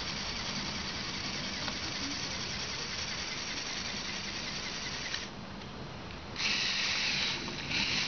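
Small electric motors and gearing of a Lego Technic remote-control truck running with a steady whirring whine. It drops back about five seconds in, then comes back louder and higher in two stretches near the end.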